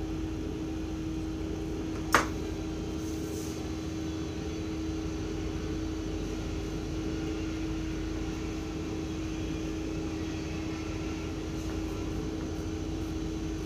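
Steady hum of a window air conditioner running, with one sharp click about two seconds in as a tape measure is set down on the drafting table.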